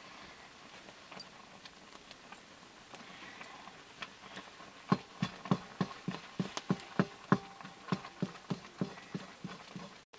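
Wooden spatula knocking and scraping against a black iron wok while stirring. There is a quick, even run of sharp knocks, about three a second, starting about five seconds in.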